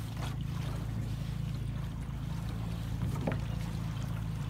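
A small flat-bottomed boat's motor running steadily as the boat moves through floodwater, with a hiss of water and wind over the low hum.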